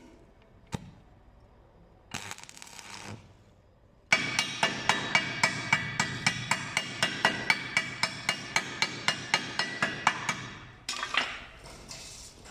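Rapid, evenly paced tapping on ringing metal, about four or five strikes a second, starting about four seconds in and lasting some seven seconds. A sharp click and a short scraping burst come before it.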